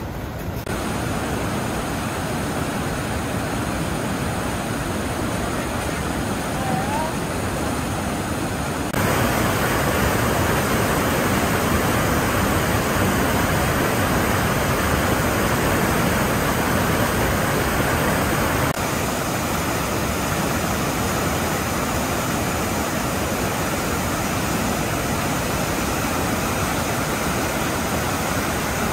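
Whitewater rapids of the Potomac River rushing over rock: a steady, loud rush of falling water, louder from about nine seconds in and a little quieter again shortly before twenty seconds.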